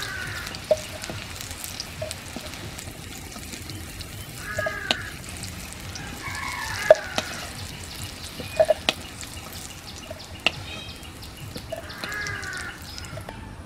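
Boiled elephant foot yam pieces sizzling in hot mustard oil in a metal kadai, with a handful of sharp clicks as a metal spatula strikes and scrapes the pan.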